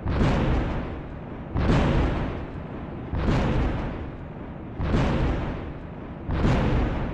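Thunderclap sound effect repeated five times, about every second and a half. Each clap starts with a sudden sharp crack and fades into a short rumble.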